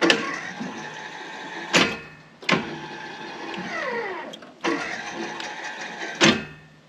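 Rebuilt 12-volt linear actuator on a Walker zero-turn mower's implement mount, its small electric motor and gearing running in several short bursts. Each burst starts with a sharp click, and the motor's whine slides down in pitch as it runs.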